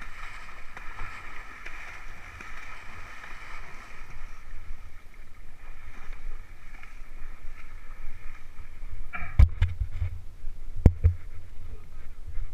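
A horse wading through shallow pond water, its legs splashing and churning the water, heard from the saddle over a low rumble. Two sharp knocks near the end.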